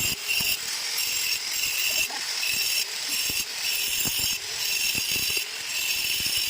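A rustic homemade mixer-grinder working with a rhythmic grinding scrape, about two strokes a second, over a steady hiss, with occasional low knocks.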